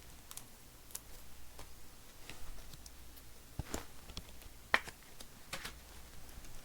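Topps Chrome trading cards being handled and flipped through: faint, scattered clicks and ticks, with a sharper snap a little under five seconds in.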